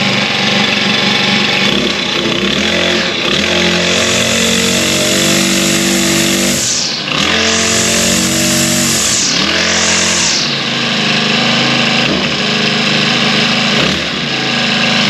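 Balwaan four-stroke brush cutter engine running just after starting. It is revved up three times, twice held for a few seconds and once briefly, in the first ten seconds or so, then drops back to a steady idle.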